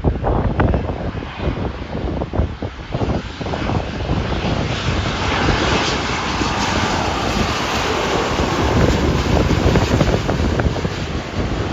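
Large jet airliner passing low and close. Its engine roar swells to a peak about halfway through, with a whine that falls in pitch as it goes by. Wind buffets the microphone at the start.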